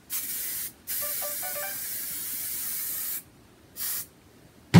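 Aerosol spray hissing in three bursts: a short one, a long one of a couple of seconds, then another short one. A sharp thump comes near the end.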